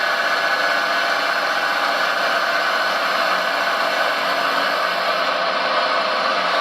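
Small electric motors of radio-controlled construction machines whirring steadily at an even pitch.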